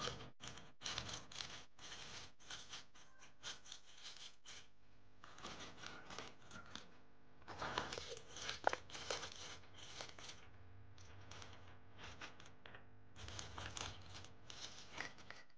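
Cellophane-wrapped hard candies being stirred by hand in a glass jar: the wrappers crinkle and rustle in short irregular crackles, coming in three spells with quieter gaps about five and eleven seconds in.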